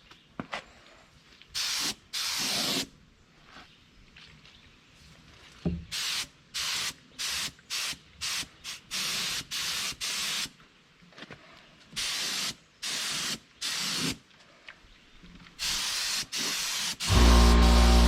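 Compressed-air paint spray gun hissing in short bursts as the trigger is pulled and released over and over, laying a light first coat of paint. Near the end a loud, steady hum with held tones starts.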